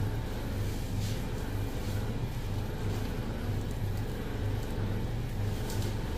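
A steady low mechanical hum, like a motor running, with a low throb that swells and fades unevenly.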